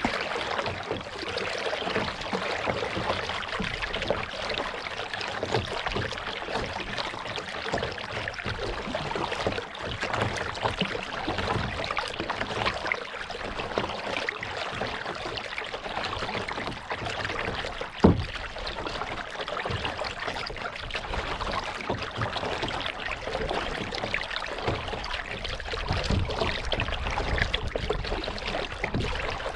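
Kayak paddling on a lake: paddle water splashing and dripping in a continuous wash of water sound, with a single sharp knock about two-thirds of the way through.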